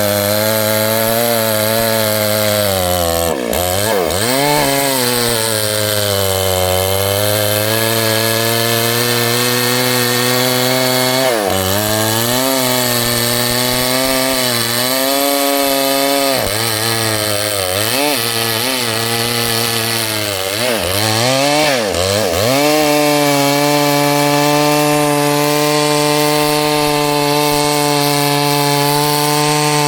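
Small chainsaw running hard through wood, cutting a log. Its engine pitch dips and recovers several times as the chain bites, then runs steadier and higher over the last third.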